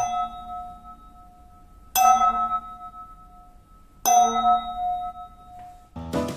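A metal spoon struck three times, about two seconds apart, each strike ringing on like a bell with a clear tone and fading away.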